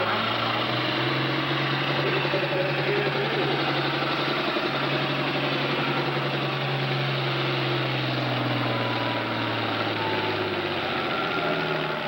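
Farm-stock diesel tractor engine running flat out under load as it drags a weight-transfer pulling sled. Its note holds steady and high, then drops away about ten to eleven seconds in as the pull winds down.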